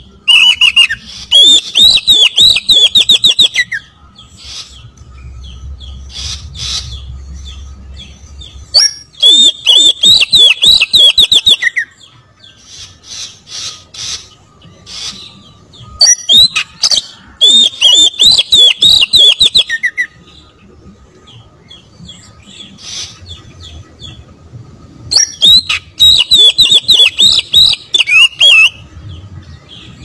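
Oriental magpie-robin singing in four loud bursts, each a few seconds of fast rolling runs of high whistled notes, with faint chirps in the pauses between them.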